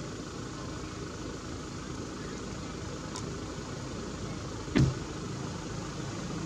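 Steady low rumble, like a vehicle engine idling, with one sharp knock about five seconds in.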